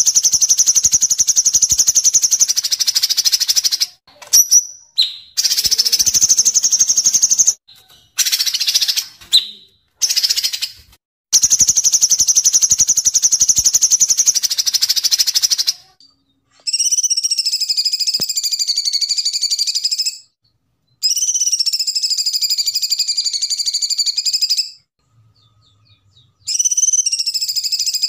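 Kapas tembak and cucak cungkok songbirds singing. In the first half, long, fast, high trills of up to about four seconds repeat with short gaps. From about halfway, slower, fuller phrases of about three and a half seconds each follow, each gently rising and falling in pitch.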